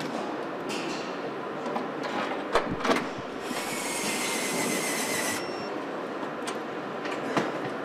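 Car assembly-plant machinery: a steady mechanical din with scattered sharp clanks and knocks. A loud hiss lasts about two seconds in the middle, then stops suddenly.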